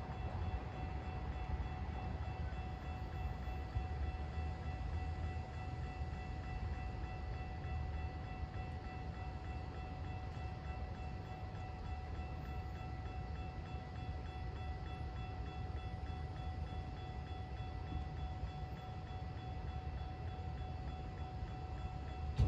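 Level-crossing warning bell ringing steadily as the crossing signals flash, over a low distant rumble from the approaching GO train.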